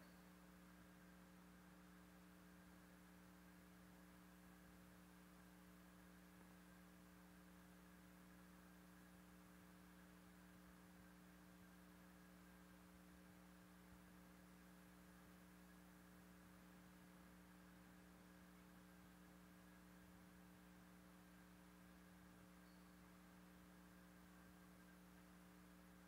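Near silence: a faint, steady electrical hum made of several held tones, with nothing else happening.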